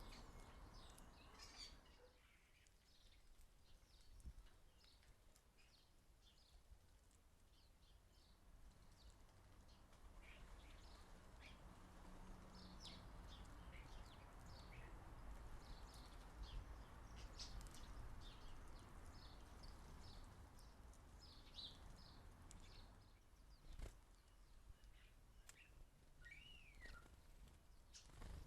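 Faint chirps and twitters of small garden birds, many short calls scattered throughout, with one longer rising-then-falling whistle near the end. A low steady rumble of background noise runs underneath.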